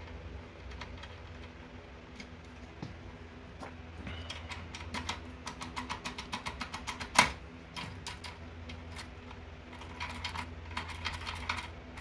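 Rapid light metallic clicking of a foil-impression pick tool being worked in a Securemme K22 lock cylinder, coming in runs of several clicks a second, with one sharp, much louder click a little past halfway.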